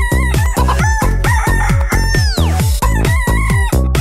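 Techno track built from chicken sounds: clucks, squawks and crowing cut in time over a steady electronic kick drum beat.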